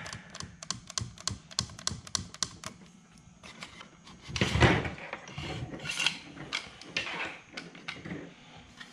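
Quick light clicks and taps of plastic parts being handled, then a louder rubbing sound about four and a half seconds in as the trolling motor's plastic control head is twisted on the shaft, followed by more scattered taps.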